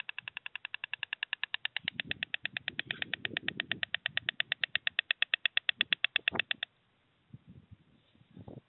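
White stork bill-clattering: a fast, even rattle of about ten clacks a second that stops abruptly near the end. Low rustling from its spread wings comes in the middle.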